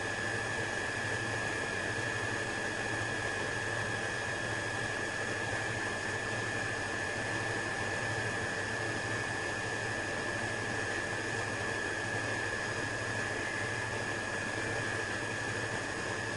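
Switched-on Miller Aerowave TIG welder standing idle: a steady fan hiss and low hum with a constant high-pitched whine.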